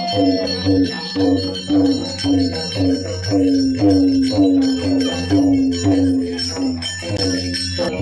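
Devotional music: a short melodic phrase repeating over a steady low drone, with bells ringing.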